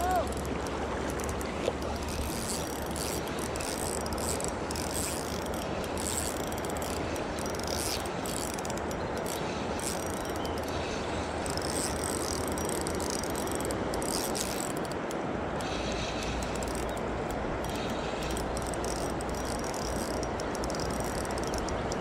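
Shimano Sephia spinning reel being cranked while reeling in a hooked trout, its gears and line roller clicking and ticking in spells, over the steady rush of shallow river water around the wader's legs.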